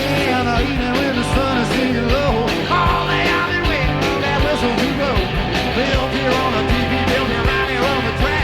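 Live rock and roll band playing full out, with electric guitars over a steady drum beat, heard from a 1988 cassette tape recording of the concert.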